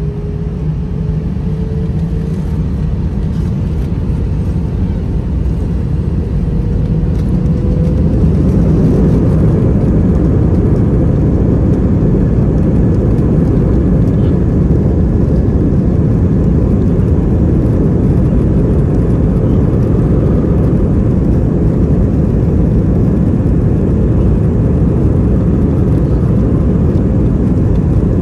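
Airbus A320 jet engines heard from inside the cabin, spooling up to takeoff power: a whine rises in pitch over the first several seconds as the noise grows louder. It then settles into steady, loud engine and rolling noise as the aircraft accelerates along the runway.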